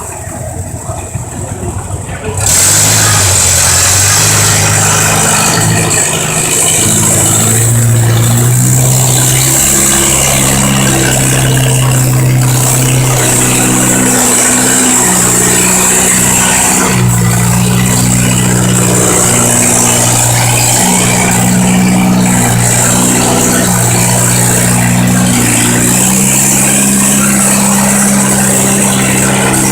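Farm tractor engine working hard under load in a tractor pull. It comes in suddenly loud about two seconds in, and its revs rise and dip repeatedly as it pulls.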